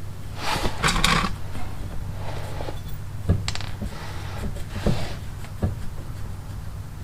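Hand-work noises on the car's rear brake: a scraping rustle, then several separate sharp clicks and knocks of metal tools or parts being handled, over a steady low hum.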